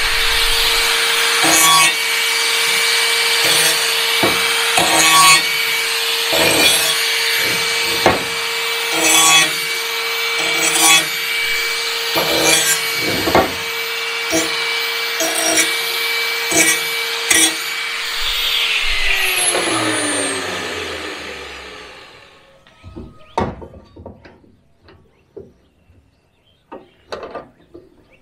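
5-inch angle grinder grinding the square-cut end of a steel section to a curve so it fits a round pipe: the motor runs at a steady pitch while the grinding noise swells and drops as the disc bites. About two-thirds through it is switched off and winds down in a falling whine, followed by a few light clanks of the steel piece being handled.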